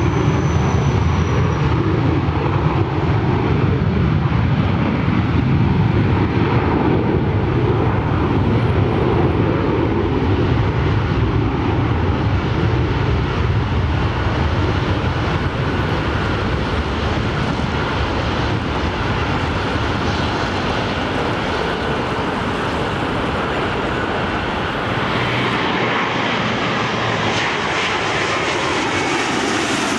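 Jet airliner engines at takeoff thrust, a loud steady rumble. Near the end a rising whine comes in as a Boeing 787 on final approach passes low overhead with its gear down.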